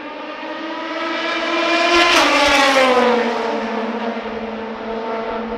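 A race car passing at speed: its engine note grows louder to a peak about two seconds in, then drops in pitch as the car goes by and fades away.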